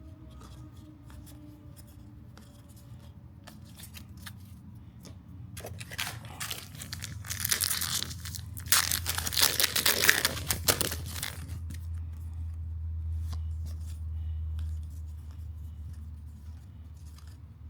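Trading cards and their wrappers being handled quickly: rustling, sliding and crinkling, with a louder stretch of tearing and crinkling about halfway through.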